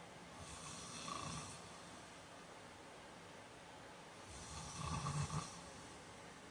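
A man snoring in his sleep: two snores about four seconds apart, each lasting about a second, the second one louder.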